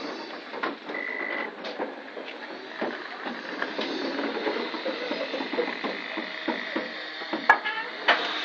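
Steam locomotive standing with steam hissing steadily, under light irregular ticks and knocks; a brief high tone sounds about a second in, and two sharp clicks come near the end.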